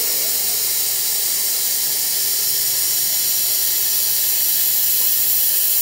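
1 kW handheld laser welding gun running a weld bead, a loud steady hiss of shielding gas and the weld that cuts off suddenly near the end.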